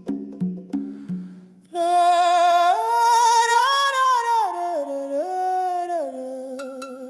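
Devotional music: a run of short repeated percussive notes ends about a second and a half in, then a wordless voice, likely female, hums a slow melody with vibrato, moving in steps and settling on a long held note with a few light ticks behind it.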